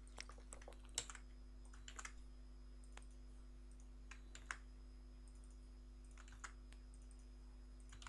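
Faint, scattered clicks of a computer mouse and keyboard, a single click or a quick pair every second or two, as text is copied and pasted field by field, over a steady low hum.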